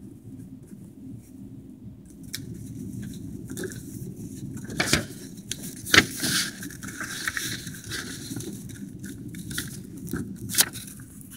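A sheet of paper on a writing pad rustling and crackling as it is handled close to the microphone, with a few sharp snaps of the paper, the loudest about six seconds in.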